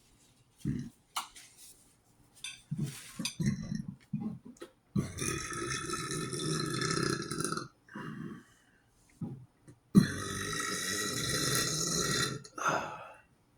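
Two long drawn-out burps, each lasting between two and three seconds, the second starting about five seconds after the first. A few short clicks and mouth sounds come before them.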